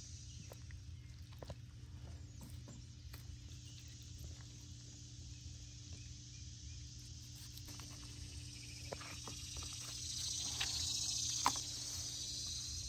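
Faint wet clicks and ticks of a knife cutting and a hand pulling snapping turtle meat from the shell on a wooden board, over a steady low hum and a high hiss that grows louder near the end.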